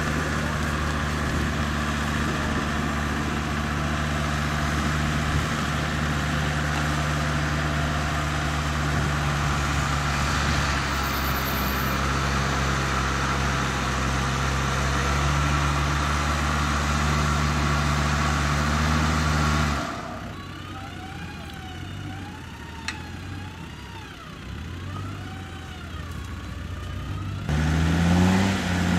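Land Rover Discovery TD5's tuned five-cylinder turbodiesel running hard and steady under load in deep mud. About two-thirds of the way through it drops away abruptly to a quieter stretch with a faint wavering whine, and near the end the engine revs climb again.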